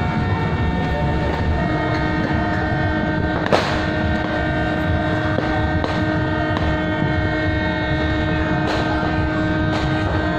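New Year's midnight din: many horns held at once at different pitches, making a steady layered blare, with a few firecracker bangs cracking through, the sharpest about three and a half seconds in.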